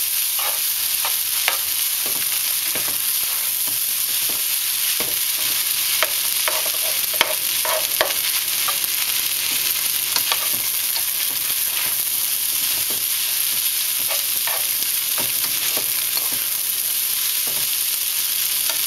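Fried rice with egg sizzling steadily in a nonstick frying pan while a slotted spatula chops and stirs it, with scattered scrapes and taps of the spatula against the pan.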